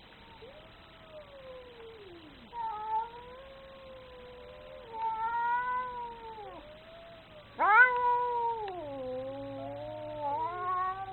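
An angry cat yowling in long, drawn-out calls that waver and slide up and down in pitch. The loudest call starts suddenly about two-thirds of the way through and then sinks in pitch.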